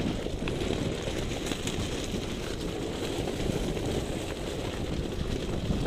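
Wind buffeting the microphone of a camera held outside a moving SUV, a dense low rumble that covers most other sound. Underneath it is the Toyota 4Runner rolling slowly over loose creek-bed gravel.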